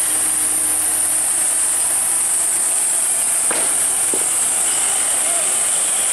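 A steady high hiss, with a truck's diesel engine running low underneath as the truck is towed up the slope.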